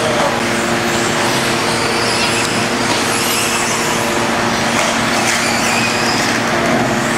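RC buggies racing on a dirt track: high motor whines rise and fall over a steady, loud din of running cars. A steady low hum runs underneath.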